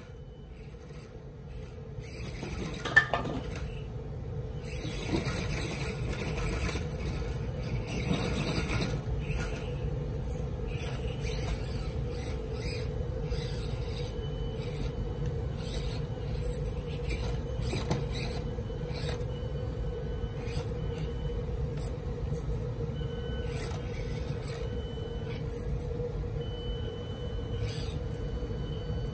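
Axial SCX24 micro rock crawler running with a steady electric motor and gear whine as it crawls over wooden logs. Its tyres scrape and knock on the wood, most in the first half, with one sharp knock about three seconds in.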